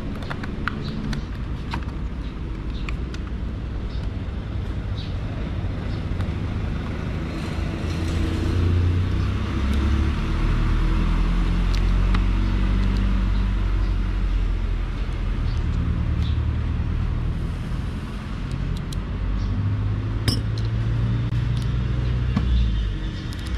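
A motor vehicle's engine rumbling, growing louder about eight seconds in and easing off near the end, with small clicks of a plastic mirror housing and screwdrivers being handled.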